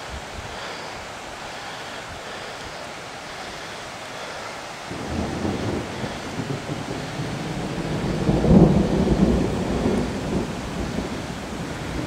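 A roll of thunder breaks in about five seconds in, swells to its loudest a few seconds later and slowly rumbles away. Underneath it is a steady rush of running floodwater.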